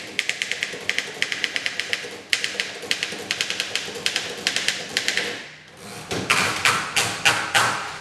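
1911 Underwood No.5 manual typewriter being typed on fast, its typebars striking the platen at about eight clicks a second. After about five and a half seconds the typing stops, followed by a few louder clunks and a rustle as the typed sheet is pulled out of the machine.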